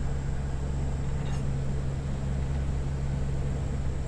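Convair 580's Allison turboprop engines and propellers running steadily at low power on short final, heard inside the cockpit as a constant low hum.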